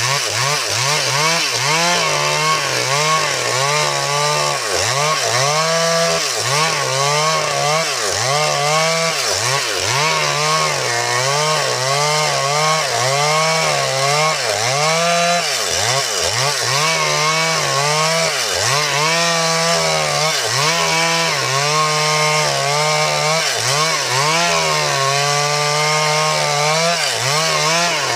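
Stihl MS 382 two-stroke chainsaw running continuously under load, its engine note rising and falling over and over, about once a second, as it cuts wood.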